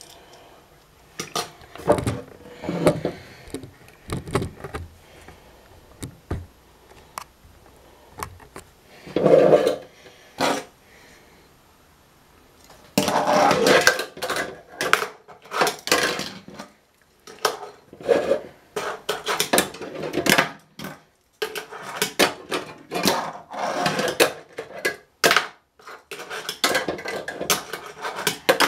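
29 mm Tech Deck fingerboard worked by hand on a granite countertop and a plastic stair-and-ramp set: many sharp clacks of the board popping and landing, with short stretches of its small plastic wheels rolling.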